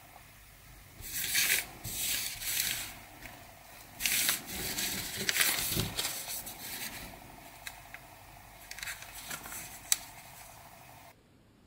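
Foil sticker packets crinkling and rustling in the hands as they are picked up and handled, in several bursts, with a sharp click near the end, over a steady hiss that cuts out shortly before the end.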